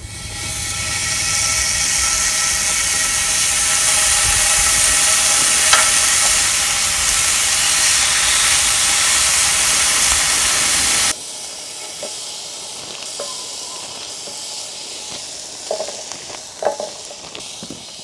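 Slices of beef chuck flap (salchisal) sizzling loudly on a hot griddle pan, a steady hiss that builds over the first couple of seconds. It cuts off suddenly about eleven seconds in, leaving a quieter stretch with a few light clicks.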